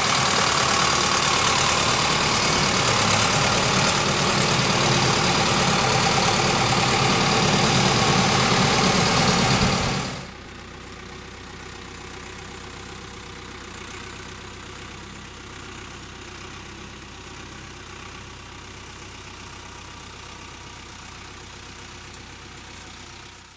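Apollo 85 hp tractor's diesel engine running loud and close while it carries a round bale on the front-end loader. About ten seconds in, the sound cuts abruptly to a much quieter, steady engine hum, which fades out at the end.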